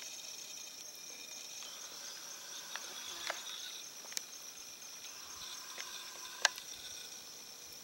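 Steady high-pitched chorus of crickets or similar night insects, with a few short chirps and one sharp click about six and a half seconds in.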